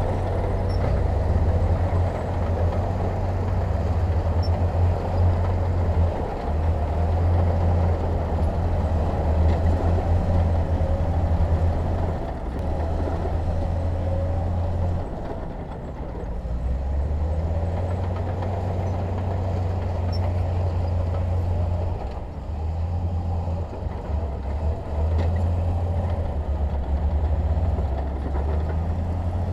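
Heavy diesel engine of earthmoving machinery running under working load, a deep hum that swells and dips in level several times.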